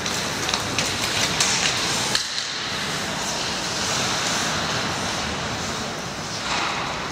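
Ice hockey play: skate blades scraping and carving on the rink ice in a steady hiss, with scattered sharp clacks of sticks and puck.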